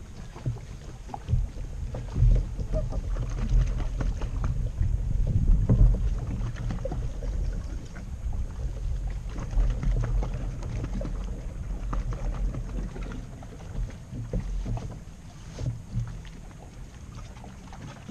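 Kayak on the water: water lapping and sloshing against the plastic hull over an uneven low rumble that swells for the first few seconds, then eases, with a few faint ticks.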